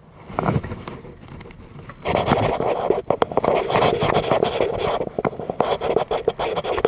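Splashing and clattering noises as a hooked baung catfish is fought in to the side of an inflatable kayak. It begins suddenly and gets louder and busier about two seconds in, full of sharp clicks and slaps.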